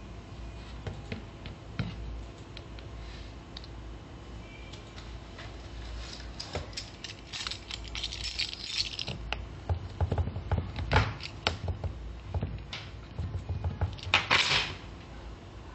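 A metal car key scraping and tapping on a smartphone's Gorilla Glass screen, a scratch test of the glass. The scrapes and sharp taps come in bursts through the middle, with a last loud scrape near the end.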